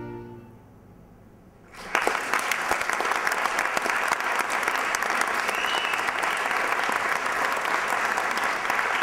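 A bowed-string music passage fades out, then an audience breaks into applause about two seconds in, sustained clapping.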